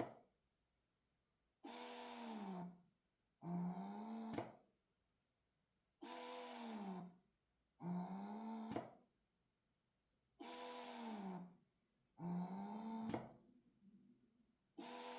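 Budget wearable breast pump's small suction motor running on max, in repeated cycles about a second long: a faint whir that dips and then rises in pitch, coming roughly in pairs with silent gaps between. A sharp click ends every other cycle.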